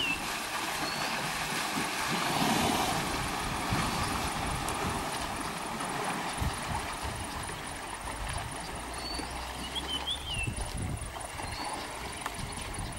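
Asian elephants wading through a river, their legs churning and splashing the water, loudest about two to three seconds in. Short bird chirps come now and then, and a low steady rumble sits underneath in the second half.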